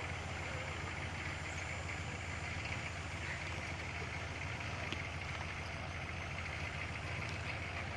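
Engine of a square-body Suburban running at low speed as it rolls slowly along, a steady low drone.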